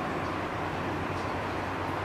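National F-MY158 60-inch ceiling fan running steadily at full speed: a constant rush of air from the blades over a low motor hum.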